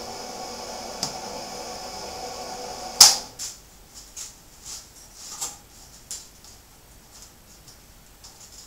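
A steady hiss with a faint hum stops abruptly with a loud, sharp click about three seconds in. After it come light, scattered clicks and knocks of tools and parts being handled at a workbench.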